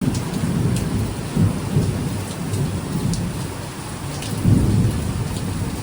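Heavy rain pouring down with low thunder rumbling, swelling about a second and a half in and again near the end.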